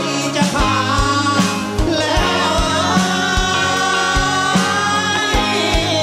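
A group of men singing a Thai song together into microphones, over a band backing with a steady drum beat.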